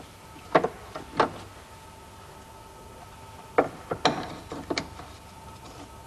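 A handful of sharp plastic clicks and knocks from the engine-bay caps and reservoir being handled during an oil and water check, over a faint steady hum.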